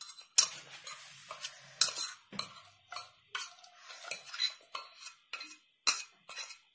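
A spoon stirring sugar into hot water in a saucepan to make sugar syrup, clinking and scraping against the pan in quick, irregular strokes.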